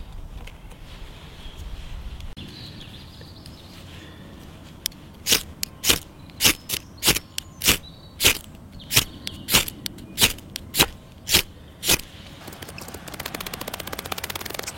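Ferro rod (fire steel) struck repeatedly with a scraper: about a dozen sharp scrapes, roughly two a second, then a quicker rasping scrape near the end. The tinder is failing to catch, glowing only now and then.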